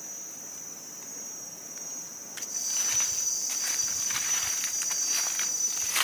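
Insects keep up a steady high-pitched drone. About two and a half seconds in, footsteps start crunching through dry fallen leaves and the insect drone grows stronger.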